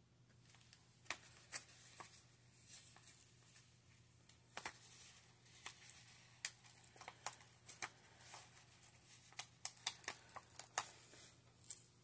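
Paper and planner sticker sheets being handled: soft, irregular rustles and small ticks, many short ones scattered through, over a faint steady low hum.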